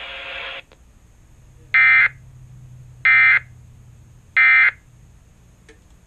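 Three short bursts of EAS digital data tones, the end-of-message (EOM) signal that closes an Emergency Alert System broadcast. They sound as a harsh, rapid, buzzy chirp, each about a third of a second long and spaced about 1.3 s apart. A hiss from the replayed audio cuts off just before them, and a faint low hum runs underneath.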